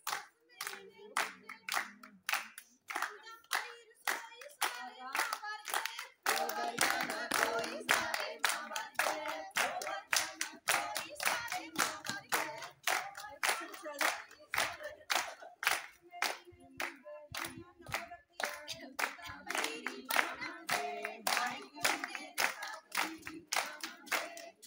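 A group of women clapping in a steady rhythm, about two and a half claps a second, while singing a Punjabi folk song together. The singing grows fuller and louder about six seconds in.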